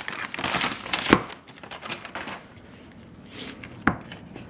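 Butcher paper crinkling and rustling as a raw steak is unwrapped by hand, loudest in the first second and a half, with a sharp tap about a second in and another near the end.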